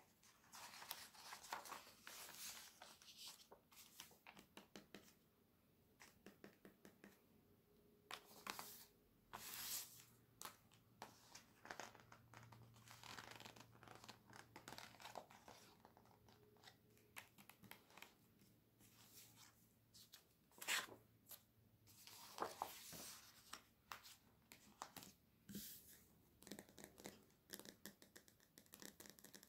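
Glossy catalogue pages handled by hands with long nails: quiet, close paper rustling and crinkling as pages are turned and rubbed, with many short clicks and scratches.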